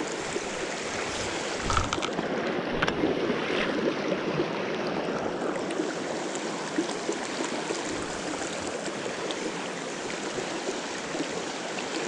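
Mountain stream running steadily over rocks and shallow riffles, with a soft knock about two seconds in.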